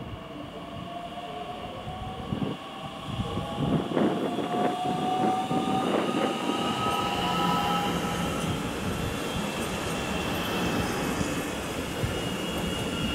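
Bombardier Talent 2 (DB class 442) electric multiple unit pulling out and passing close by. Its traction motors whine in several tones that slowly rise in pitch as it gathers speed. A few wheel clacks over the points come in the first seconds, and it grows louder from about three and a half seconds in as it draws level.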